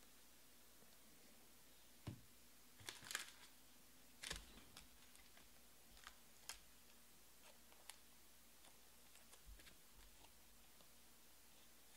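Near silence broken by a few light taps and clicks, with a short cluster about three seconds in and fainter single ticks after: trading cards being handled and set down on a table.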